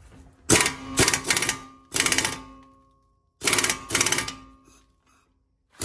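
Pneumatic impact wrench hammering on a front CV axle nut in short bursts of about half a second, two groups of several bursts with a pause between. The nut does not break loose: the wrench is not strong enough for it.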